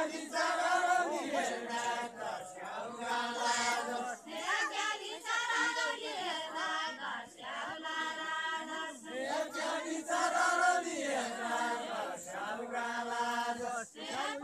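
A group of men and women singing a Deuda folk song together without instruments, in chanted phrases of held notes with short breaks between them.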